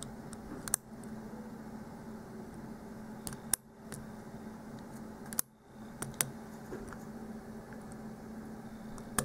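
Single-pin picking of a padlock: a hook pick working the pins against top-of-the-keyway tension gives about six sharp little metallic clicks, spaced irregularly over a faint steady hum.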